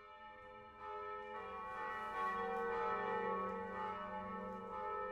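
Church bells ringing, several overlapping tones that swell about a second in and then ring on steadily.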